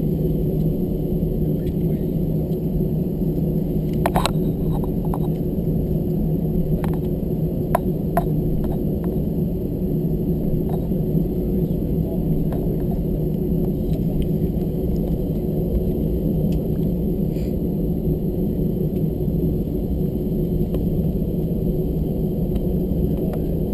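Cabin noise of an Airbus A321 taxiing: the CFM56 turbofans at taxi power give a steady low drone with a hum at a few fixed pitches. A few light clicks and rattles come between about four and nine seconds in.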